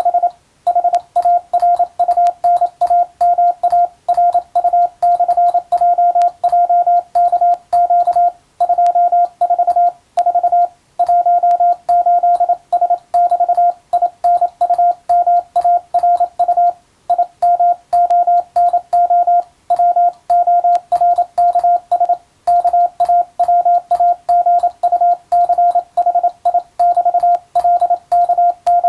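Morse code tone keyed on and off in quick dots and dashes, with short pauses between words. It spells out an English-language radiotelegram sent as radiotelegraph-operator exam practice.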